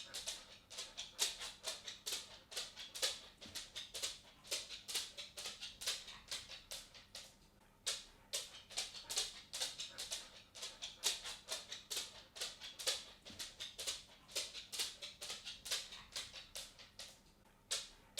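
A dog's claws clicking and tapping on a wooden floor as it walks: quick, irregular clicks several times a second, with two short pauses where it stops.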